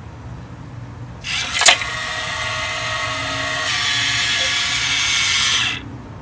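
Electric drive motor and gearing of a rusted-steel kinetic sculpture whirring for about four and a half seconds as it swings the spiked jaws shut and open again, starting about a second in with a sharp click, its note changing partway through, and cutting off near the end.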